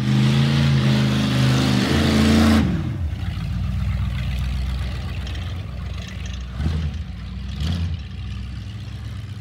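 Old station wagon's engine revving loudly as the car pulls away, easing off about two and a half seconds in, then running more quietly as it drives off, with two brief surges near the end.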